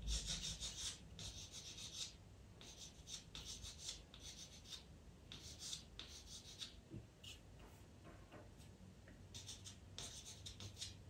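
Pastel pencil scratching across Pastelmat paper in short, quick shading strokes: a soft dry rasping in clusters, pausing for a second or two about eight seconds in.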